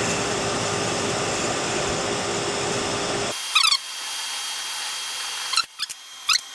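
Hacksaw blade pressed against a small walnut tenon spinning slowly on a wood lathe, cutting with a steady hiss. A little over three seconds in, the steady sound stops abruptly and a few short, high-pitched scrapes of the saw follow.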